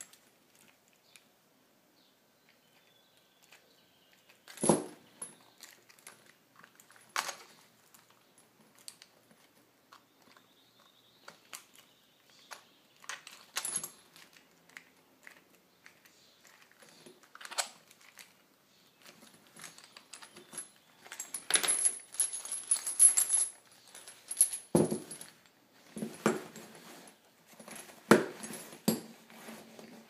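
Handling of a Master Lock Tuff Links keyed chain lock: scattered sharp clicks and knocks from the key and lock head, with a busier run of metallic clinking from the chain links shifting about two-thirds of the way through.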